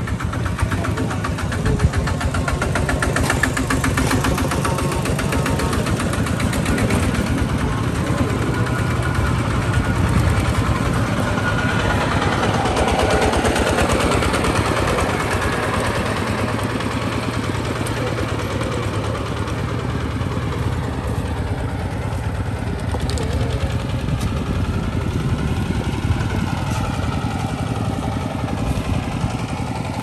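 A two-wheel walking tractor's diesel engine running steadily at idle, with a rapid, even beat.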